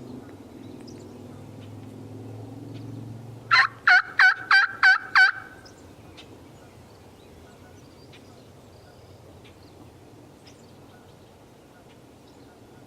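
A turkey calling: a series of six loud, evenly spaced notes, about three a second, lasting under two seconds, a few seconds in. A low steady hum runs underneath for the first few seconds.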